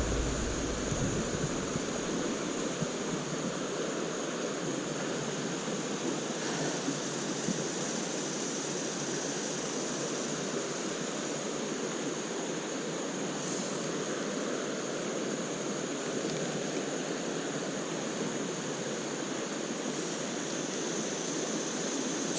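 Steady rush of creek water running over rocks in shallow riffles.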